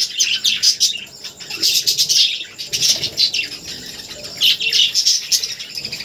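Budgerigars chirping and chattering: a busy, continuous run of quick high-pitched notes that eases for a moment around the middle.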